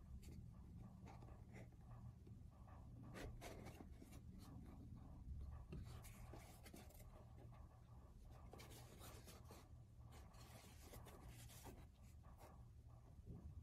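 Faint scratching, rustling and small taps of fingers handling and opening a cardboard sunglasses box, over a low steady hum.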